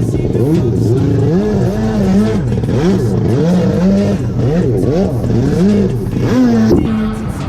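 Two-stroke Yamaha SuperJet stand-up jet ski engine revving up and down over and over, the pitch rising and falling about once or twice a second as the throttle is worked, holding steady briefly near the end.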